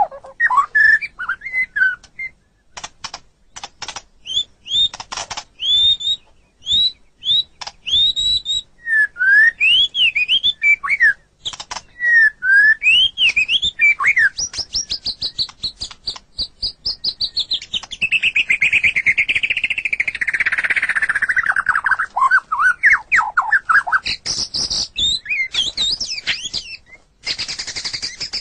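White-rumped shama singing a long, varied song: quick rising and falling whistled notes, dry rattling clicks, and a drawn-out buzzy phrase that slides down in pitch in the second half.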